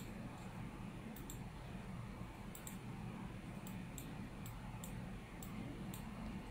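Faint, irregular computer mouse clicks, some in quick pairs, over a low steady room hum.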